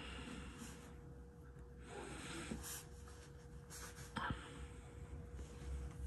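Soft rustling of clothing as hands work a man's leg, over a steady faint hum. There is a short sound falling in pitch about two seconds in, and a soft click a little after four seconds.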